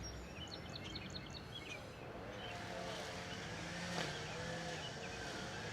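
Outdoor background of a small bird chirping rapidly for the first couple of seconds, then the hum of a distant motor with a slowly wavering pitch comes in and runs on.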